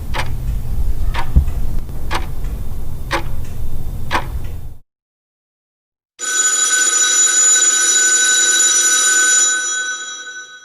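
A low rumble with a sharp click about once a second for roughly five seconds, then, after a short silence, a bell ringing steadily for about four seconds and fading out near the end.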